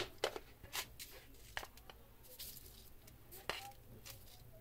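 A few faint, sharp clicks and taps at irregular intervals as salt is added to a metal cooking pot of raw lentils and vegetables.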